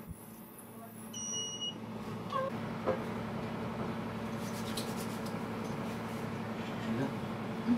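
A single electronic beep of about half a second, a little over a second in, from a handheld facial treatment device. A steady low machine hum sets in at about the same time and carries on.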